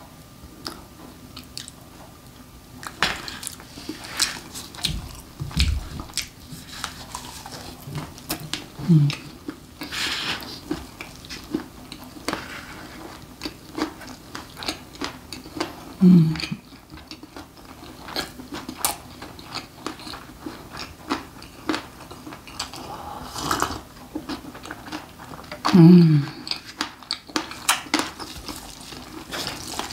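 Close-up chewing of sliced jokbal (braised pork trotter) topped with kimchi: many sharp, wet mouth clicks. Three short low vocal sounds, falling in pitch, come about 9, 16 and 26 seconds in.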